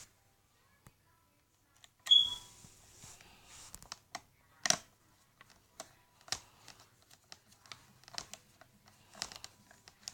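Irregular clicks, taps and knocks of hands handling a laptop's plastic case and parts during reassembly, starting about two seconds in, with a sharp knock at the start and another a few seconds later.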